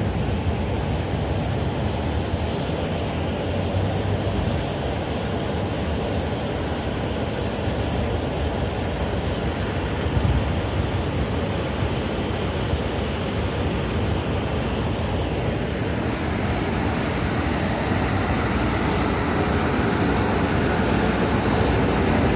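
Steady outdoor city ambience with a low rumble of road traffic, growing slightly louder over the last few seconds.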